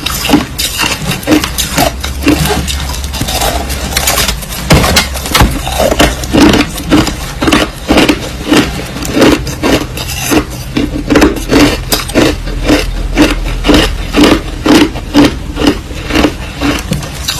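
Crushed ice being chewed: loud crackling crunches that settle into a steady rhythm of about two chews a second.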